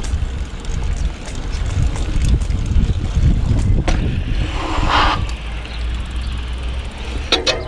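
Wind buffeting the microphone as a mountain bike is ridden, with scattered clicks and rattles from the bike and a short scraping hiss about five seconds in.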